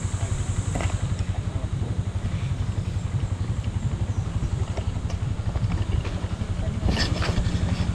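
An engine running steadily at idle, a fast even low throb, with a few light clatters about a second in and near the end.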